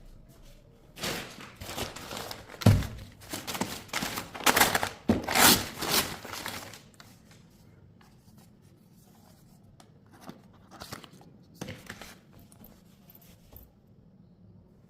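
Packaging being handled and torn open: a few seconds of rustling and tearing with a heavy thump about three seconds in, then a few faint clicks and rustles later on.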